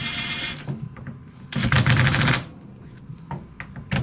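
Power driver running in two short rattling bursts, the second longer, driving screws or bolts home into a fridge door hinge.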